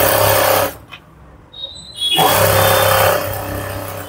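Electric sewing machine running in short bursts while stitching a folded fabric edge: one run of under a second at the start, then another starting about two seconds in that lasts about a second before tailing off.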